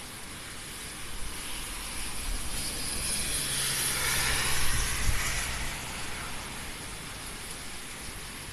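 Heavy typhoon rain and wind, with a rushing sound that swells over a few seconds, peaks about halfway through with a low hum underneath, and fades again.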